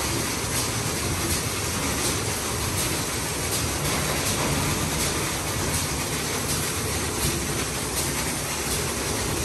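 Istobal M9+ rollover car wash gantry running its active-foam pass: a steady hiss and rumble of the machine and spray, with faint regular ticks a little under twice a second.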